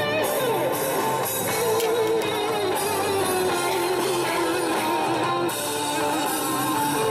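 Background music carried by a guitar melody.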